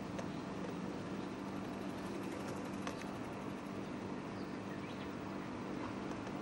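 Distant electric tram approaching along street track: a steady low hum over even street noise, with a few faint clicks.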